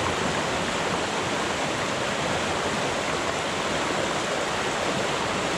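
Rocky mountain stream rushing over boulders in fast rapids: a steady, even rush of water.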